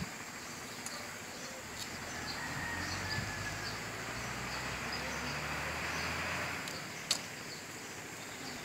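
Faint outdoor ambience of small bird chirps, with a low hum that swells from about two seconds in and fades near the end, and a sharp click at the start and another near the end.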